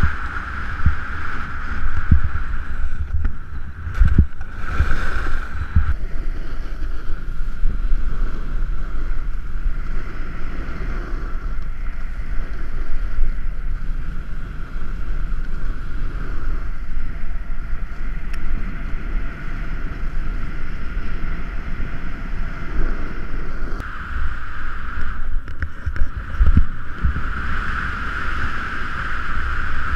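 Snowboard sliding and scraping over packed snow under steady wind rush and low rumble on the microphone, with occasional knocks.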